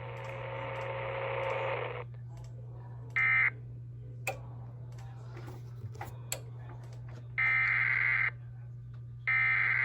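Emergency Alert System SAME digital data bursts over a radio feed: harsh, buzzy warbling bursts that mark the start and end of an alert message. One short burst comes about three seconds in, and two longer ones follow about seven and a half and nine seconds in, evenly spaced. Before them, hiss runs for the first two seconds and then cuts off, and a steady low hum with scattered clicks runs underneath.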